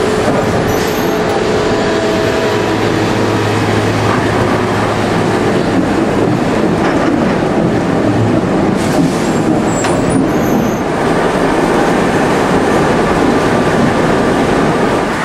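Sawmill log-handling machinery running: a steady rumble and clatter of logs moving along a chain conveyor and step feeder, with a few sharp knocks about two-thirds of the way through.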